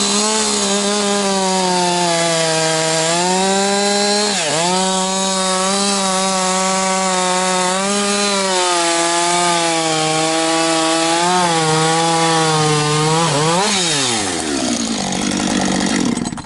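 Gas chainsaw cutting through a large log, the engine held at high revs under load with a brief dip about four seconds in. Near the end the revs fall away as the saw finishes the cut.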